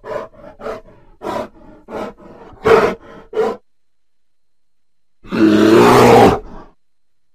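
Grizzly bear giving a string of about eight short calls over the first three and a half seconds, then, after a pause of a second and a half, one long roar lasting about a second and a half, the loudest sound.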